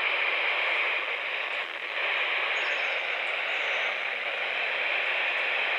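Weather radio receiver giving steady static hiss, with no voice on the channel: the broadcast signal has dropped out.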